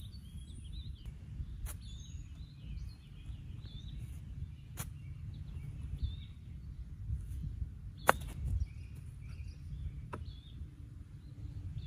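Pitching wedge striking a golf ball on a short chip off the grass: one sharp click about eight seconds in, with a few fainter clicks elsewhere. Birds chirp throughout over a low steady rumble.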